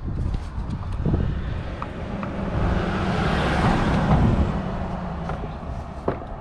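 A road vehicle passing by: its noise swells to a peak about three to four seconds in and then fades, over a steady low rumble, with a few light clicks of handling.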